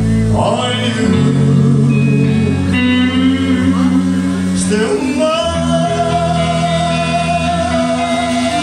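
Live band playing a slow ballad, a soprano saxophone carrying the melody with gliding notes, then holding one long note from about halfway through, over the band's backing.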